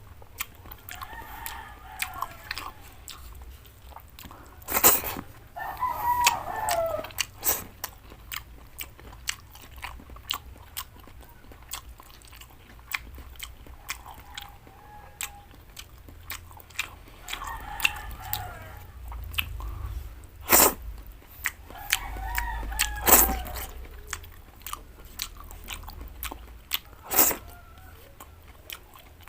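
A person chewing and biting into cooked vegetables, with many sharp mouth clicks and smacks, a few of them much louder than the rest. Short wavering higher-pitched sounds come in now and then between the bites.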